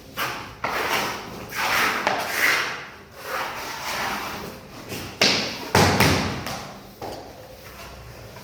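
SPC floor planks being handled and laid: a series of irregular thuds and knocks with scraping between them, the loudest a pair of sharp knocks about five to six seconds in.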